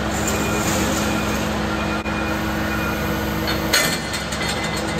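Roll-off truck's engine running with a steady hum, with a short, sharp clatter of metal a little before four seconds in.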